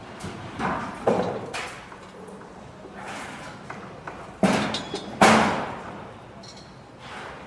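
Building construction site noise: a series of irregular heavy bangs and thuds over a low background rumble, the loudest a little over five seconds in.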